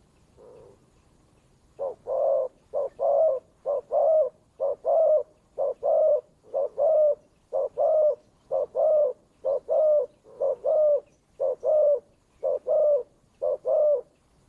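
A dove, most likely a spotted dove (cu gáy) kept as a decoy, cooing repeatedly. After a faint coo, it gives about thirteen paired calls, a short note then a longer one, about one pair a second.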